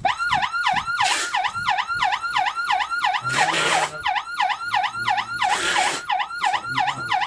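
Electronic car police siren through a 200-watt horn speaker, sounding a fast sweep: the pitch drops and rises again about four times a second. Three short bursts of rushing hiss come in over it, about one, three and a half, and five and a half seconds in.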